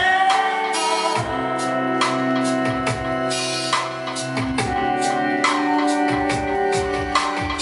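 Pop music with a drum beat, bass line and sustained chords, played through new Logitech Z-5500 5.1 computer speakers. The speakers are kept to no more than 30 percent volume while they are broken in.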